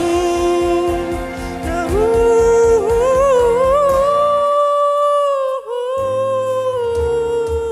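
A man singing a ballad, holding a long note over a backing track: his voice steps up in pitch about two seconds in and is held with a slight vibrato. The backing drops out for about a second and a half past the middle, then comes back in.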